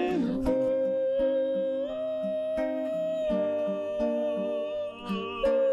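A man singing one long held note into the microphone over strummed acoustic guitar accompaniment; the note steps up slightly about two seconds in.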